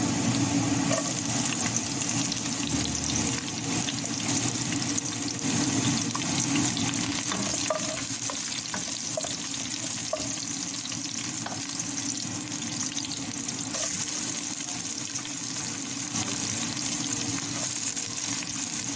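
Sliced garlic sizzling steadily in hot oil in a pan, stirred now and then with a wooden spatula.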